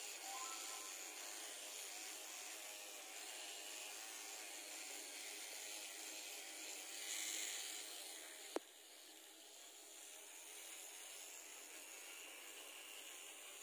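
Faint hum of a small battery-powered facial hair remover running as it is moved over the face, with one sharp click a little past halfway.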